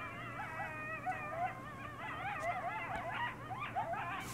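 A pack of wild canids howling and yipping together in chorus, with many high-pitched voices overlapping and wavering quickly up and down in pitch.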